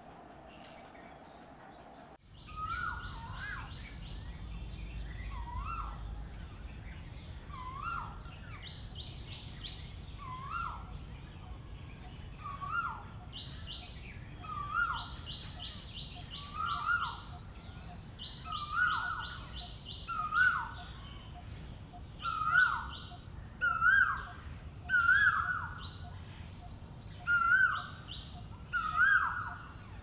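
Male Asian koel giving its breeding call, a rising two-note 'ko-el' repeated about every two seconds and growing louder through the series. Before it, for the first two seconds, insects buzz steadily.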